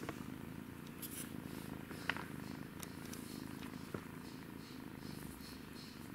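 Thai kitten purring steadily, close up, with a few light clicks about one, two and four seconds in.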